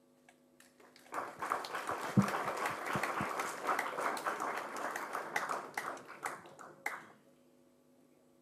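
Audience applauding: clapping starts about a second in, runs for some six seconds and dies away.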